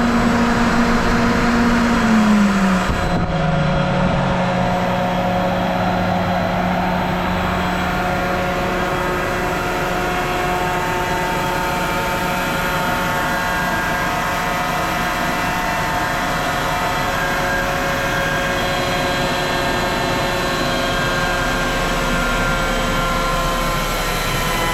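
CompAir L37S-9 37 kW (50 hp) air-cooled rotary screw air compressor running, a steady machine hum with a whine of several tones; its low tone drops in pitch about two to three seconds in and then holds steady.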